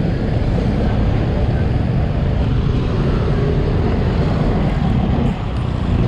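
Busy street traffic close by: vehicle engines running, with a steady wind rumble on the microphone.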